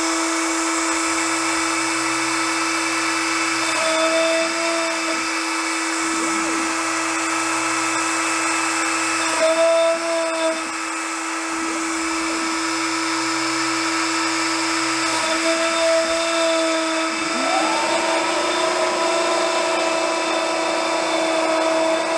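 Shapeoko Pro CNC router running a job: its router spindle spins with a steady whine while a 1/4-inch flat end mill starts cutting into Baltic birch plywood. The machine's note shifts in short stretches every few seconds as the gantry moves.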